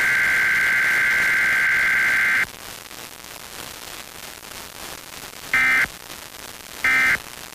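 Emergency Alert System digital data tones from a radio broadcast, a harsh two-pitch warble: a long burst that cuts off about two and a half seconds in, then after a stretch of radio hiss two short bursts about a second apart near the end, the repeated end-of-message code that closes an alert.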